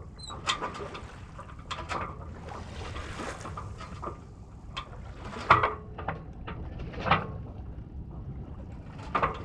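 Ericson 39 sailboat under sail in light wind: a steady rush of water and wind noise on the microphone, with a scattering of short knocks and clicks from the boat, the loudest about halfway through.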